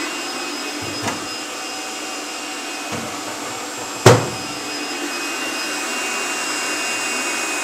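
Electric stand mixer running steadily, whipping chantilly cream, its motor giving a steady whine. A single loud knock about four seconds in, with faint clicks before it.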